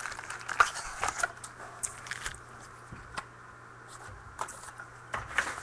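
Crinkling and crackling of a trading-card pack's wrapper being handled and opened: a quick run of sharp crackles, busiest in the first couple of seconds, thinning out, then a few more near the end.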